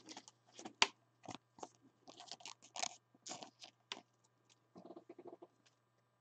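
Faint, irregular clicks and rustles of trading cards being handled, the sharpest a little under a second in and a last small cluster around five seconds in.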